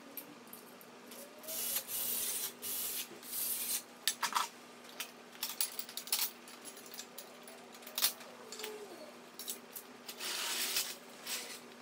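Metal work on a bare LS V8 engine block hanging from an engine crane: irregular bursts of metal rubbing and scraping with a few sharp clinks, including one about eight seconds in, and faint squeaks, over a steady low hum.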